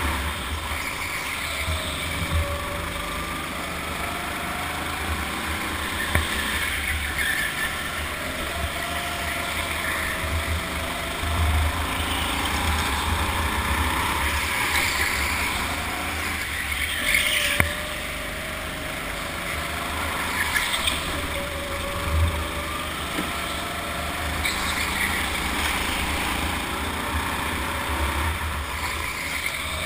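Go-kart motor running flat out around a track, its pitch rising and falling with speed through the corners, over a steady low rumble from the kart and track, with a few short knocks.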